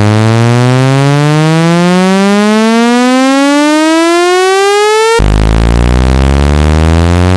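Synthesized speaker-cleaning tone: a loud, buzzy electronic tone sweeping steadily upward in pitch. About five seconds in it drops back to a low pitch and starts rising again, then cuts off suddenly at the end. The sweep is played to shake dust and water out of a phone speaker.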